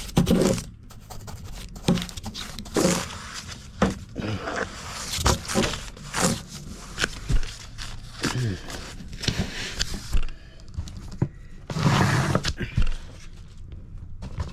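A person grunting and breathing heavily in short bursts while painting a floor, mixed with scraping and a few light knocks.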